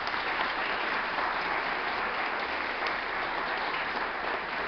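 Audience clapping: sustained, steady applause from a group of people.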